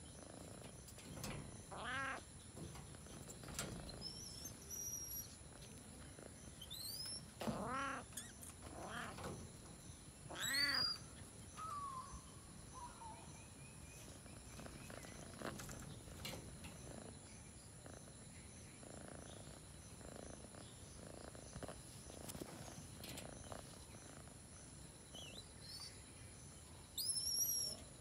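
Jungle cat giving a handful of short meow-like calls, four or so in the first half, the loudest about ten seconds in. Thin high rising chirps are heard over the calls, with a louder burst of chirping near the end.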